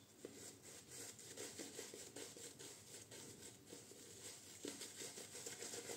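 Faint, soft swishing of a shaving brush working soap lather into a thick stubbly beard, in quick repeated strokes.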